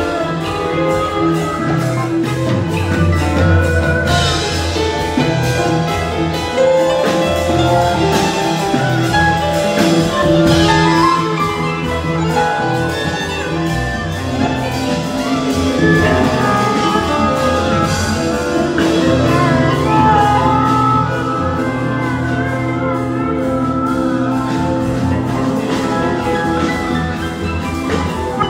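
Live band music from guitars, keyboard and drums, playing together over a steady drum beat.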